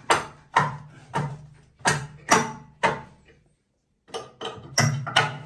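Repeated sharp knocks on a wooden board, about two a second with a brief break about three and a half seconds in, as a loose front board of a concrete bathroom vanity is struck from inside to knock it free; each knock rings briefly in the small room.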